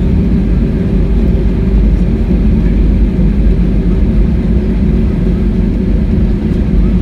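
Airbus A321 taxiing, heard from inside the cabin: a steady low rumble from its IAE V2500 engines at taxi power, with a faint steady hum.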